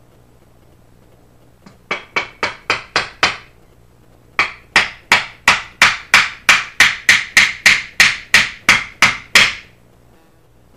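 Hammer driving a nail through a pine board into a soft pewter anchor in a concrete wall: a quick run of about seven blows, a short pause, then a steady run of about seventeen blows at roughly three a second. Driving the nail expands the anchor behind the board to lock it to the wall.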